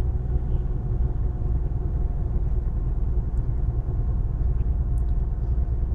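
Heavy truck hauling a B-double (bitrem) trailer set cruising on the highway, heard from inside the cab: a steady low engine drone and road rumble.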